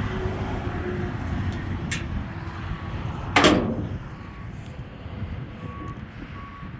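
1962 Ford F100 pickup's V8 engine running with a steady low rumble. A light click comes about two seconds in, and a loud sharp bang like a door shutting comes about halfway through.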